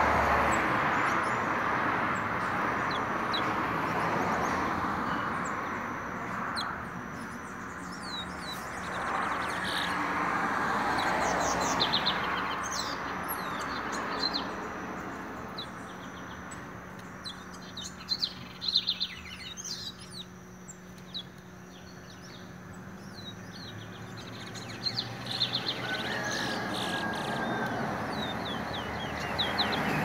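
Towa-towa (chestnut-bellied seed finch) singing in its cage: bursts of quick high chirps and trilled phrases, thickening in the middle and again near the end, over a steady background rumble that is heaviest in the first few seconds.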